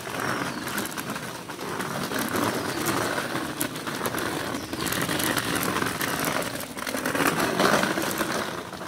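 Small wheels of a pulled shopping trolley rattling over a wet concrete path: a steady, noisy clatter, a little louder near the end.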